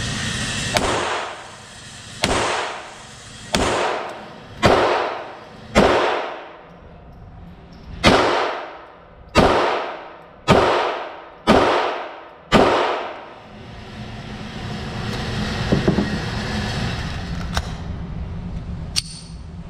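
Ten shots from a Browning Buck Mark .22LR pistol, fired at a steady pace about one a second, each sharp crack trailing off in echo from the concrete walls of an indoor range. After the last shot, a few light clicks as the empty magazine is pulled out and swapped.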